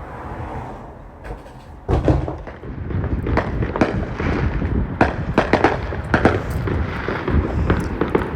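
Fireworks going off: a few scattered pops, then about two seconds in a dense, irregular barrage of sharp cracks and bangs that keeps going.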